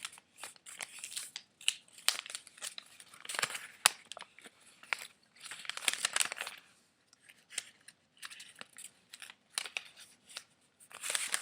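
A folded paper sheet being unfolded and handled, with irregular crinkling, rustling and sharp crackles.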